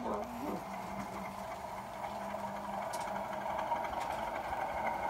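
Model railway Class 37 diesel locomotive, 37669, running with a freight train: a steady hum and a whirring that slowly grows louder as it approaches.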